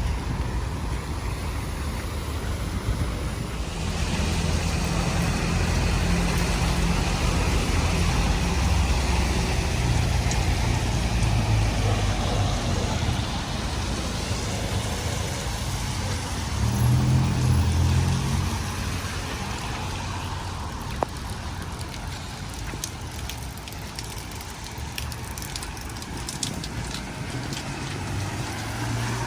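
Motor vehicles passing on a rain-wet street, engines running over a steady hiss of tyres and rain. One vehicle passes close and loudest about two-thirds of the way in.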